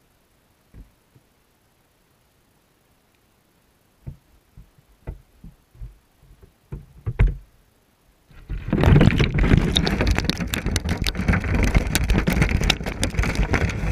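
Underwater quiet broken by a few dull knocks against the wire minnow trap. About eight seconds in, loud splashing and rushing water with rapid crackling starts suddenly as the trap is lifted out of the stream and water pours off through the mesh.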